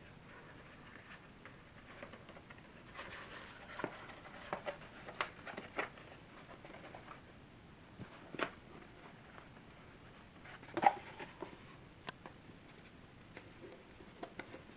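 Scattered light clicks, taps and handling noises from lamp parts being fitted together during assembly, with a louder knock about 11 seconds in.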